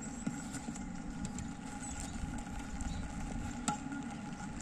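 Wind rumbling on the microphone on an open field, with one faint sharp tap a little past halfway.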